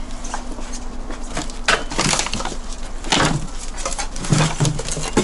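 Shovel digging and scraping through packed rubble and junk, a series of short crunching scrapes about a second apart.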